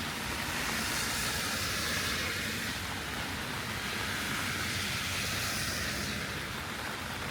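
Heavy rain falling on a city street: a steady hiss over a low rumble, swelling louder twice.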